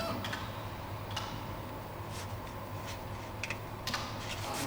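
Steady low hum of a CNC milling machine, with a few light, scattered clicks while the Z axis is inched down slowly onto the tool-length probe.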